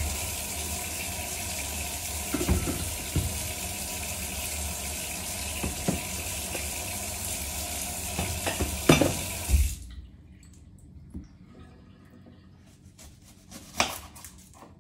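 Kitchen tap turned on, its water stream splashing into a stainless-steel sink for nearly ten seconds, with a few clunks as things are moved under it, then shut off suddenly. Afterwards there are faint clicks and one louder knock near the end.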